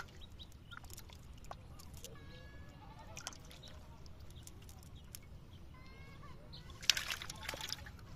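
Live fish splashing in a metal basin of water, with a short, loud burst of splashing about seven seconds in, while a cast net is handled. Faint animal calls sound now and then in the background.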